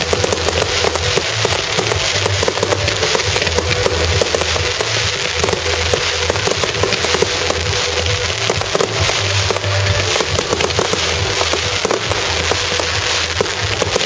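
Fireworks finale: a dense, continuous barrage of overlapping bangs and crackles with no let-up.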